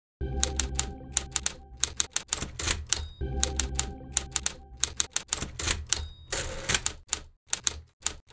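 Typewriter sound effect: keys clacking in quick uneven runs, with a short bell ring about three seconds in and again about six seconds in, each followed by a brief carriage-return slide as a new line begins.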